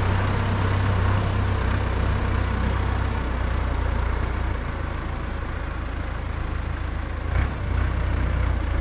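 A vehicle engine running steadily with a low hum that eases slightly about halfway through, and a single short knock near the end.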